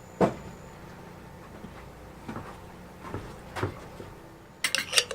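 Cooking oil and a spoon being handled at a frying pan: a sharp knock about a quarter second in, a few softer knocks, then a quick run of metal clinks near the end as the spoon works against the pan.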